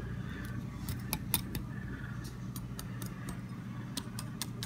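Metal fork tapping on the roasted pork shoulder's crackling skin, a quick, uneven series of sharp clicks: the skin has roasted nice and hard.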